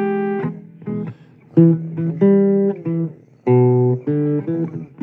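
Blues guitar playing an instrumental fill: a handful of sharply struck chords and notes, each left to ring before the next.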